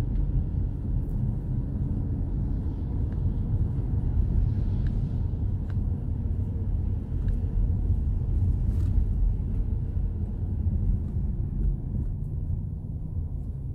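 Steady low rumble of a car driving, heard inside the cabin, getting a little quieter near the end.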